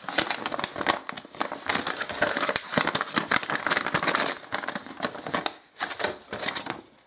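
A folded paper instruction leaflet being unfolded and handled, crinkling and rustling with many small crackles, with a short lull about five and a half seconds in.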